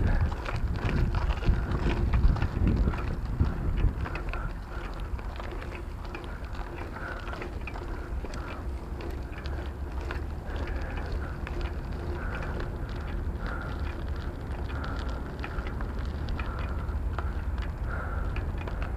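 Wind rumbling on the microphone of a bicycle-mounted camera while the bike rolls over a rough path, its tyres and frame giving off light rattles and clicks. Louder for the first few seconds, then steady.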